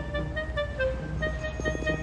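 Background music: an instrumental melody of short held notes, over a steady low rumble.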